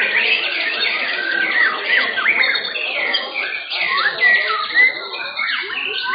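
White-rumped shamas (murai batu) singing in a contest, a dense run of overlapping whistles, sweeping up-and-down phrases and chattering notes.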